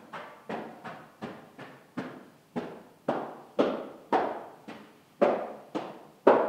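Footsteps echoing in a large lecture hall, about two steps a second, some louder than others, each followed by a short ring of reverberation.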